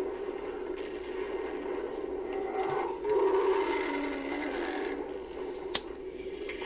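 Film soundtrack playing through a computer's speakers and picked up by a room microphone: a steady, noisy drone that swells about three seconds in, with one sharp click near the end.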